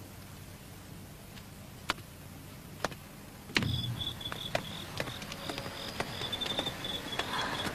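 A low hum with two sharp clicks. About halfway through it gives way to insects chirping at night in a high, evenly pulsing trill, with scattered light clicks.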